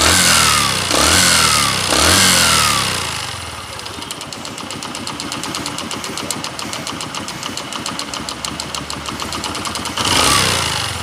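Bajaj Platina motorcycle's single-cylinder four-stroke engine revved in three quick throttle blips, each falling back in pitch. It then idles with a rapid, even tapping knock ('tak tak tak'), with one more blip near the end. The mechanic says the engine is in very bad condition.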